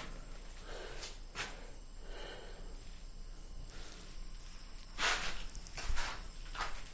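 Footsteps and rustling handling noise of someone moving with a handheld camera, with a few light clicks and a louder scrape or scuff about five seconds in.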